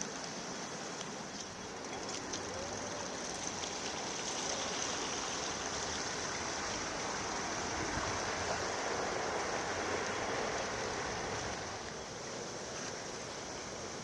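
Floodwater rushing steadily, swelling louder for several seconds in the middle.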